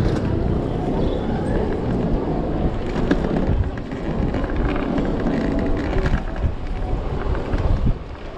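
Riding an Okai ES400A electric scooter on city streets: steady wind and road rumble with scattered short knocks and rattles, dropping briefly near the end.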